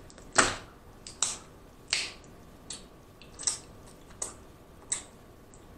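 Snow crab leg shells cracking and snapping apart by hand: about seven sharp cracks, a little under a second apart, the first the loudest.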